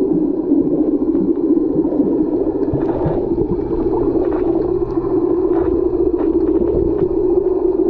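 Steady muffled underwater rumble and water noise picked up by a camera in a waterproof housing, with a few faint clicks scattered through it.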